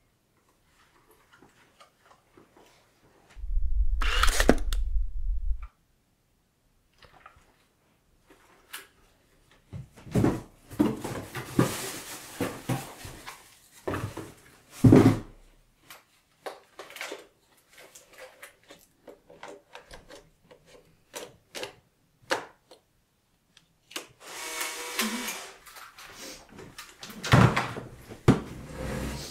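Unpacking and handling noises: a cardboard box and its packing paper rustling, with knocks and thumps as things are picked up and set down on a desk. A loud low rumble lasts about two seconds near the start.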